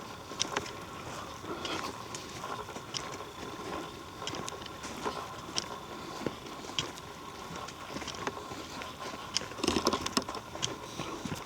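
Footsteps of people walking on a dirt trail: irregular crunches and scuffs about every half second, with a louder flurry of crunching and rustling about ten seconds in.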